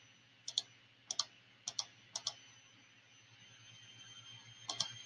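Computer mouse clicking: four quick double clicks about half a second apart, then a short cluster of clicks near the end. A faint steady hum lies underneath.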